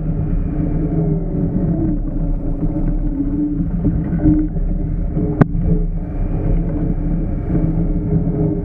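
Side-by-side utility vehicle engine running steadily at a varying pitch while riding, with one sharp knock about five and a half seconds in.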